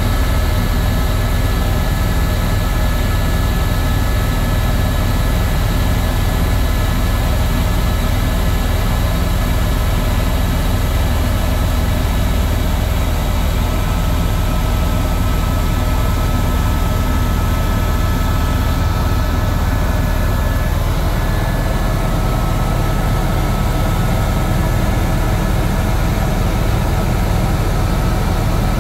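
Helicopter in flight, heard from inside the cabin: a loud, steady low drone of rotor and engine with a thin, steady high whine over an even rushing hiss.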